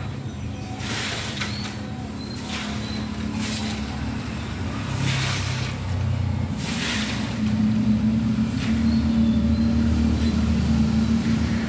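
A steady low motor-vehicle rumble with a humming tone that grows louder about two-thirds of the way through, and a few faint, short bird chirps above it.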